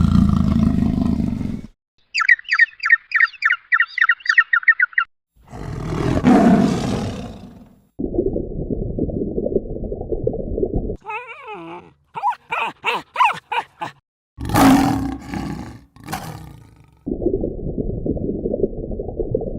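A run of short, separate animal calls cut one after another with brief silences between them. Among them are deep roars, a fast high trill and a short gliding call.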